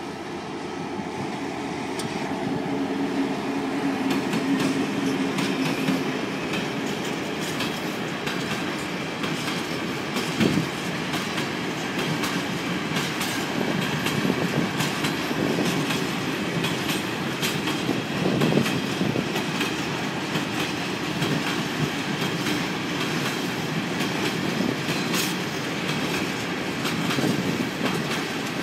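Freight train of ČD Cargo hopper wagons rolling past, the wheels clicking steadily over the rail joints with an occasional light squeal. The diesel locomotive's engine drone is heard in the first few seconds, fading as it moves away.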